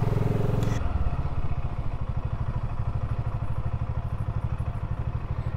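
BSA Gold Star 650's single-cylinder engine running at low revs on the move, a steady beat of evenly spaced firing pulses; it eases off slightly after about a second.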